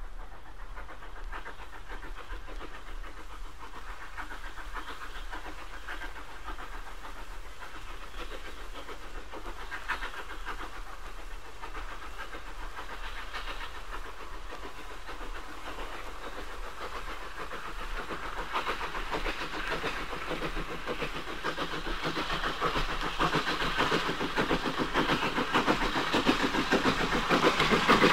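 Steam exhaust beats of an 'H' class 0-4-4T tank locomotive working hard up a steep 1 in 53 gradient, picking up again after a signal check. The beats grow steadily louder through the second half as the engine draws nearer.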